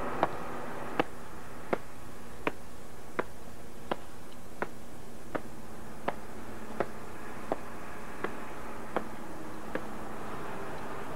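A steady series of about fourteen sharp ticks, one roughly every three-quarters of a second, stopping near the end, over a constant low hum and hiss.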